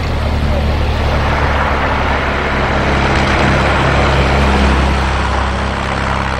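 Engine of a classic open roadster race car driving past under steady throttle, a continuous low drone. It is loudest about four and a half seconds in and then begins to fade as the car moves away.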